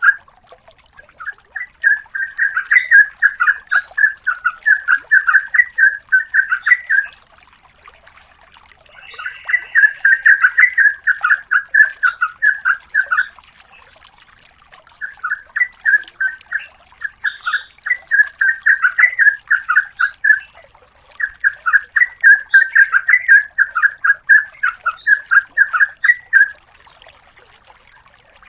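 Sooty-headed bulbul (trucukan) singing in four long runs of rapid repeated notes, each lasting several seconds, with short pauses between them.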